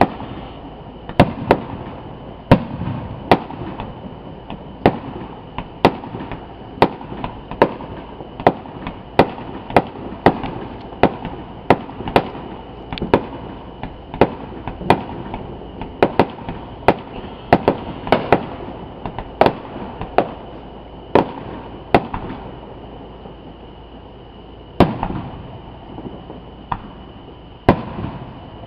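Aerial fireworks bursting in a steady run of sharp bangs, about one a second, with rumbling between them. There is a brief lull about three-quarters of the way through before the bangs resume.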